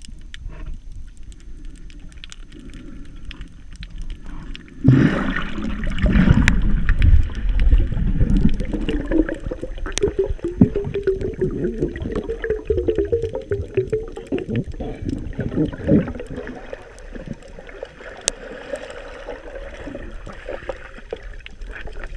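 Muffled water noise heard through a submerged camera housing: gurgling and sloshing with scattered clicks and knocks, which surges suddenly about five seconds in and settles again later.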